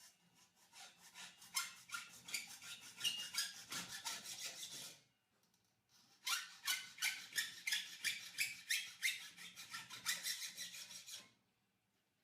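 Fine-toothed hacksaw cutting thin steel cable tray in quick back-and-forth strokes, about three a second. There are two runs of sawing with a pause of about a second midway.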